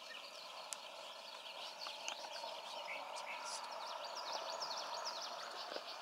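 Small birds chirping: many short, high, downward-sliding chirps, overlapping one another, over a faint steady hum.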